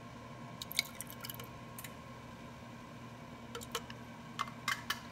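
Small clicks and taps of a measuring spoon and containers being handled at the counter, in two bunches, about a second in and near the end, over a low steady hum from the running air fryer.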